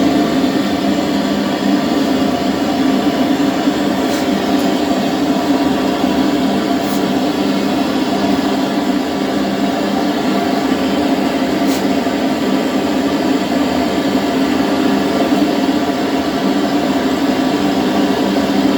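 Brazing torch flame burning steadily with a constant loud rushing noise, as copper pipe is heated for silver brazing. A few faint ticks sound over it.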